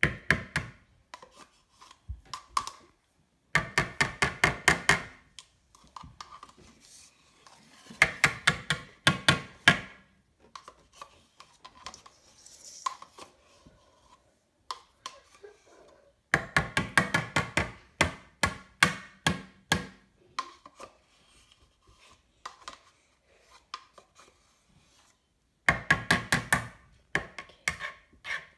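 A utensil knocking fast against the side of a container while mixing: four bursts of a few seconds each at about eight strikes a second, with scattered lighter taps between.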